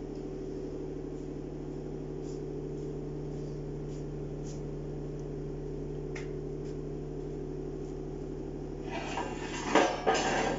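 A steady machine hum, with a few faint ticks. Near the end comes a cluster of sharp metal clanks as the steel three-point linkage lift frame is handled on the press bed.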